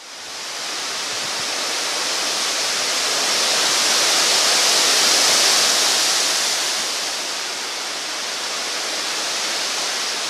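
Storm wind rushing through tall pine trees in a hurricane: a loud, steady hiss that swells in a gust around the middle and eases off again.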